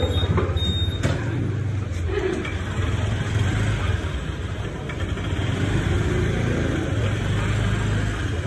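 Motor scooter engines running at low revs, a steady low hum over the general noise of a busy alley.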